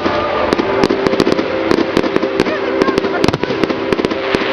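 Fireworks display going off: a rapid, irregular run of bangs and crackles from bursting shells.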